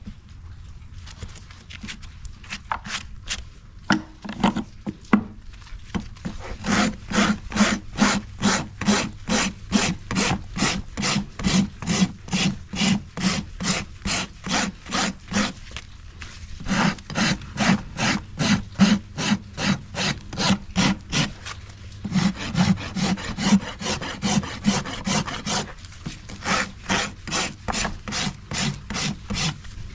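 Hoof rasp scraping back and forth across a horse's hoof in steady rhythmic strokes, about two a second, filing the hoof level during a trim. A few lighter strokes come first; the strokes pause briefly about halfway through and again a few seconds later.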